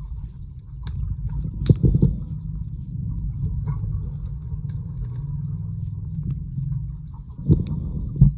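Underwater swimming-pool sound picked up by a submerged camera: a steady low rumble of water, with a few sharp knocks, the loudest about two seconds in and two more near the end.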